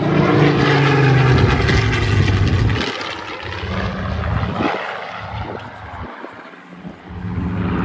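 Supermarine Spitfire's V12 piston engine in a flyby. The engine note drops in pitch over the first second or so as the plane passes, fades away, then swells again near the end.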